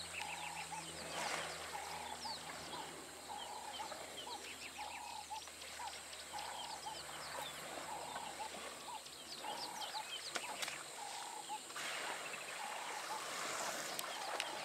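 Wild birds calling: one repeats a short note roughly once a second while others chirp in short high bursts. About three-quarters of the way in, soft water splashing joins them as the bull elephants wrestle in the waterhole.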